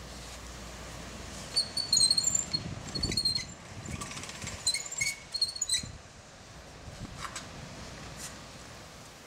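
Hand-cranked pasta machine cutting dough into noodles, its rollers giving low rumbling knocks, while a small bird chirps in short high bursts between about one and a half and six seconds in.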